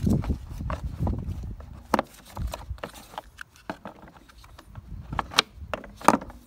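Scattered plastic clicks and knocks as the electric motor and its plastic fan housing are handled and worked back into the plastic deck of a Bosch Rotak lawnmower, with the sharpest knocks about two seconds in and near the end.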